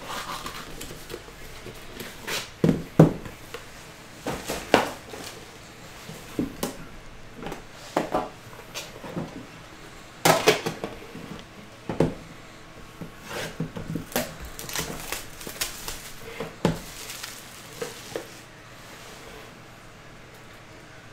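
Hands opening a trading-card box and handling its metal tin: cardboard rustling and scraping, with irregular clinks and knocks of the tin and its lid.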